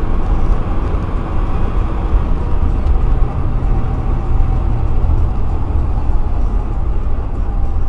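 Steady low road and engine rumble heard from inside a car cruising on a highway.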